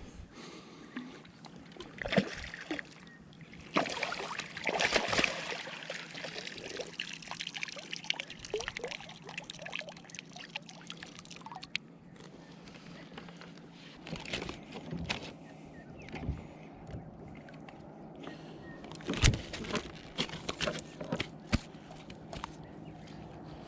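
Water sloshing and trickling against a kayak, with scattered knocks and clicks of gear against the hull.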